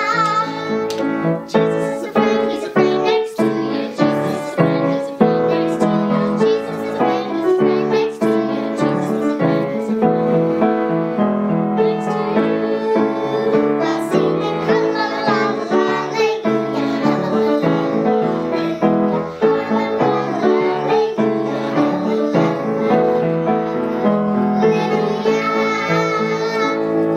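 Young girls singing a children's song together, accompanied on grand piano with many quick struck notes.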